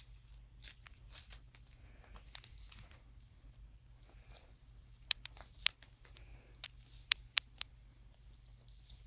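A kitten playing on denim jeans: soft scratching and rustling as its claws and paws work the fabric, with a handful of sharp clicks about halfway through. A faint steady hum lies underneath.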